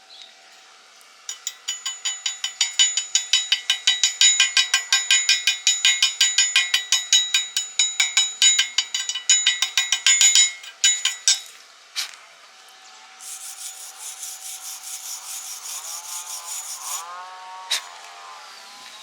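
Rapid back-and-forth scraping strokes, about four or five a second, with a metallic ring, stopping about eleven seconds in. Then a steady hiss for a few seconds, with a few short squeaks near the end.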